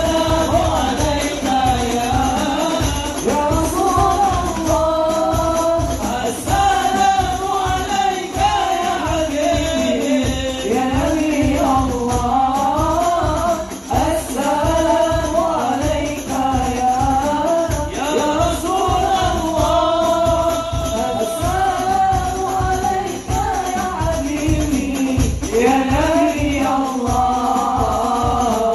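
Islamic sholawat sung with a wavering melodic line, accompanied by hadroh frame drums (rebana) beating a steady, fast rhythm with a jingling shimmer on top.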